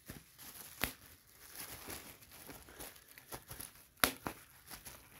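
Plastic bubble wrap crinkling as fingers work over it, with sharp pops of bubbles bursting, the loudest about a second in and about four seconds in.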